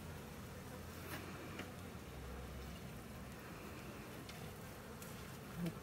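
Honey bees buzzing faintly around an open hive, with a few light clicks from handling.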